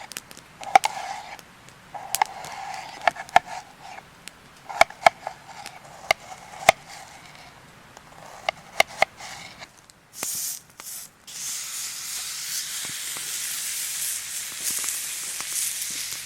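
A run of sharp metallic clicks and clinks. About ten seconds in, a thick ribeye steak goes into a hot cast iron pan and sizzles steadily from then on.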